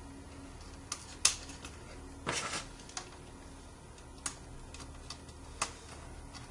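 Small clicks and taps of a tiny screw and washer being handled and set into the plastic alarm panel to fix its cell card, with a brief scrape a little over two seconds in. The sharpest click comes just over a second in.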